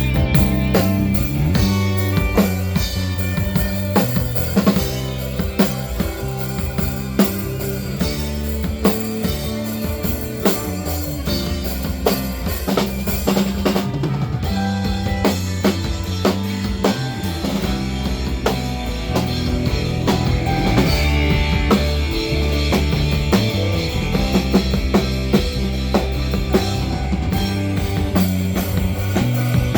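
Amplified live band playing rock music at a sound check: a drum kit keeps up dense bass-drum, snare and rimshot hits over sustained, changing bass notes.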